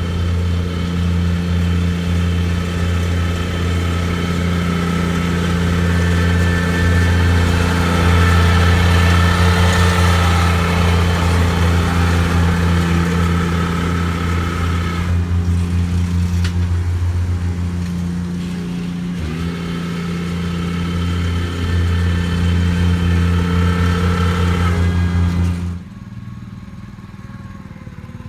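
The engine of powered lawn-renovation equipment running steadily at a constant pitch under load. About 26 seconds in, the sound drops abruptly to a much quieter, rougher running.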